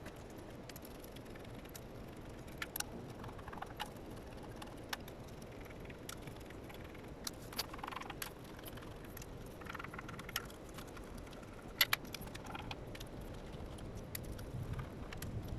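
Scattered light metallic clicks and clinks of hand tools and small bolts being worked on the camshaft caps of a Toyota 1NZ-FE cylinder head, irregular and several seconds apart.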